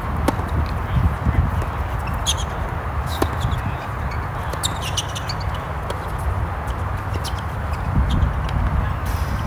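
Tennis ball struck by racquets and bouncing on a hard court during a doubles rally: a scatter of short, sharp pops over a steady low rumble.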